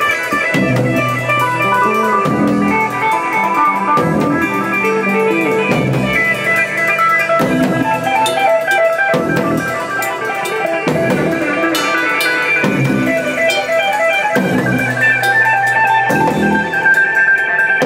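Improvised instrumental rock jam: electric guitar picking runs of short repeated notes over a drum kit and bass, steady and continuous.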